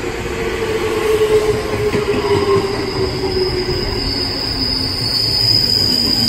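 Electric commuter train moving past on the adjacent track: a slowly falling motor whine over the first few seconds, then a high, steady wheel squeal that grows louder toward the end, over the rumble of the wheels.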